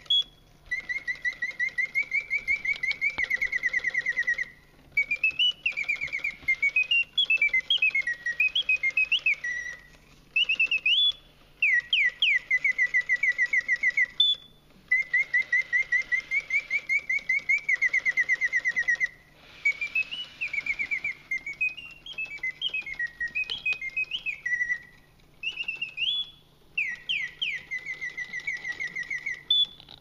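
Vintage clockwork singing bird cage automaton whistling its mechanical birdsong from a bellows-driven whistle. It sings in phrases of rapid chirping notes, some held near one pitch and others sweeping up and down, broken by short pauses.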